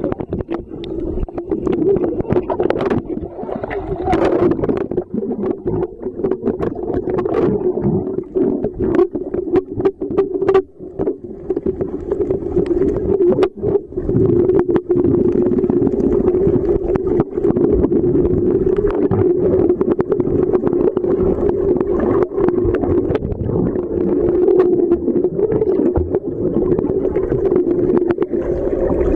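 Muffled underwater sound picked up by a camera held beneath the surface: a steady low drone with scattered crackles and knocks, which are busiest in the first half and thin out later.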